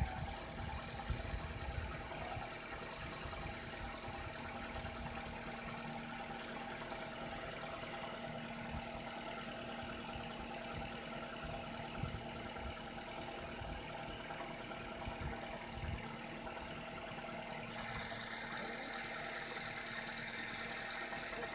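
Nissan X-Trail T31's 2.5-litre four-cylinder engine idling steadily after a cold start, with no knock. About 18 seconds in, a steady hiss in the upper range joins the idle.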